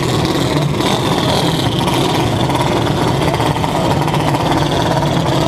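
A vehicle engine running steadily, with a constant low hum under a rushing noise.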